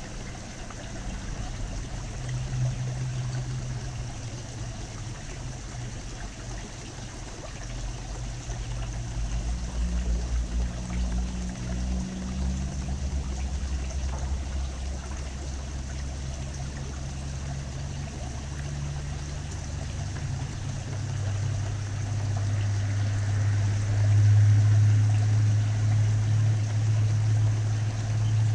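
Steady running, trickling water with a low rumble underneath that grows louder in the last third.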